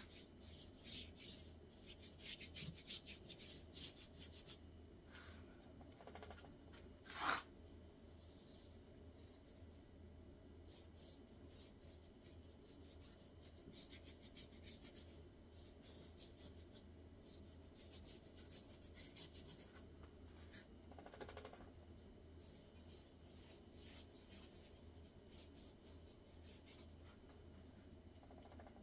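Faint scratchy rubbing of a paintbrush's bristles stroking across paper taped to a wall, coming in short runs of strokes. One brief louder noise breaks in about seven seconds in, over a steady low hum.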